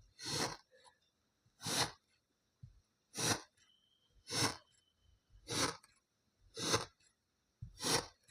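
Kinetic sand being sliced with a knife, seven even, crunchy cutting strokes a little over a second apart.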